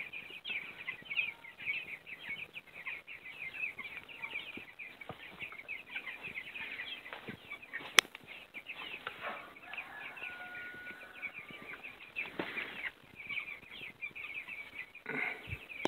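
A flock of two-week-old chicks peeping continuously, many short falling cheeps overlapping one another. A single sharp click about eight seconds in.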